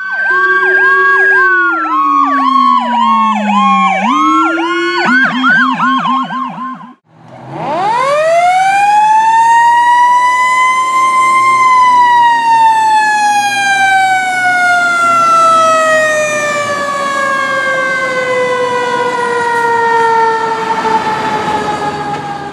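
Fire engine sirens. For about seven seconds electronic sirens warble and yelp in rapid cycles, then after a short break a mechanical siren winds up over about four seconds and slowly winds down, with a low rumble beneath.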